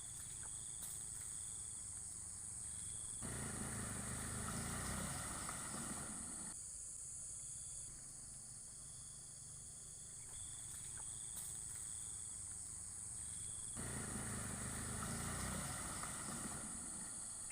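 Steady high-pitched drone of insects such as crickets, with short repeating chirps, overlaid twice by about three seconds of low, rough rumbling noise that starts and stops abruptly.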